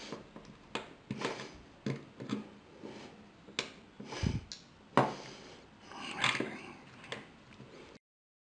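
Pliers clicking and tapping on a small plastic Lego 9V plug as its base plate is pressed down to clamp the wires: a dozen or so irregular sharp clicks, the loudest about five seconds in, with light handling noise between them. The sound cuts off abruptly near the end.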